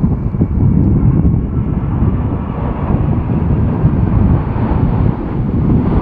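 Rolls-Royce Trent 1000 engines of a Boeing 787-9 rumbling as the jet passes low on final approach, mixed with strong wind buffeting the microphone. The jet noise grows brighter as the aircraft comes closer.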